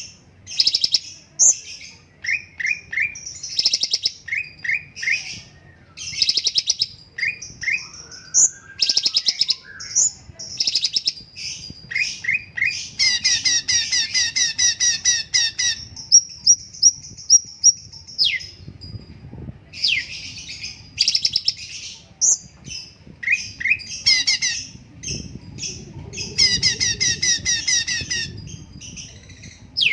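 Cucak cungkok songbird singing a fast, continuous song. It mixes rapid rattling trills, quick runs of short falling chirps, and one long steady whistle about halfway through.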